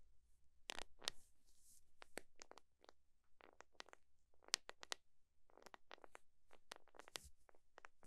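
Knit-gloved fingers tapping and scratching a grey plastic handle with a ribbed grip, close to the microphone: an uneven run of soft clicks mixed with a few scratchy strokes.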